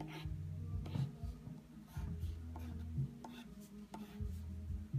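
Pencil scratching on paper in short drawing strokes, over a low steady hum.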